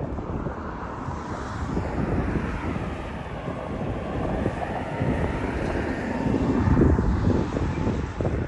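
Wind gusting on the microphone over the steady drone of an aircraft passing overhead, swelling through the middle.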